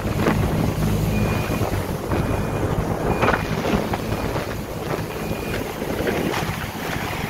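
Boat motor running steadily, with wind buffeting the microphone.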